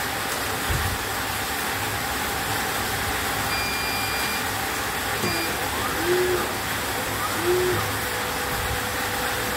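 CNY E900 embroidery machine powering up: a long electronic beep about three and a half seconds in, then a short beep, over a steady hiss. A dull thump comes just under a second in.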